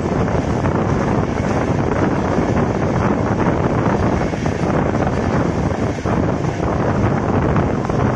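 Wind rushing over the microphone at the open window of a moving passenger train coach, mixed with the coach's steady running noise on the track.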